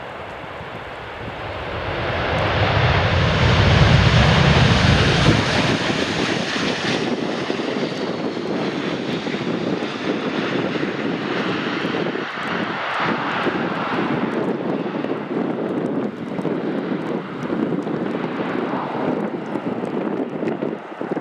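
Boeing 737-800's CFM56 jet engines in reverse thrust on the landing roll-out on a wet runway: the roar swells about two seconds in to its loudest, with a deep rumble for a few seconds, then eases to a steady rushing jet noise as the aircraft rolls through standing water.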